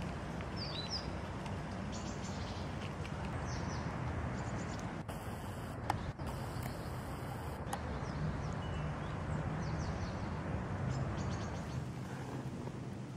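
Outdoor ambience: a steady low background rumble with faint short bird chirps now and then, and a couple of brief clicks near the middle.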